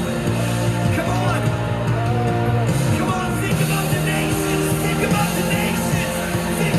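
Live worship music: a full band playing with singing.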